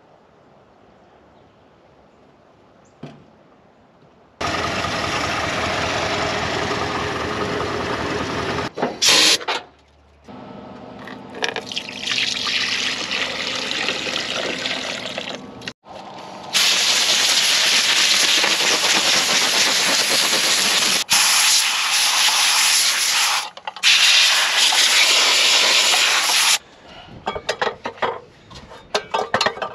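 Fluid being poured into the truck under the hood, from a quart bottle into a funnel and from a jug into a plastic reservoir. It comes in several stretches of steady pouring after a quiet opening of about four seconds, with short breaks between them.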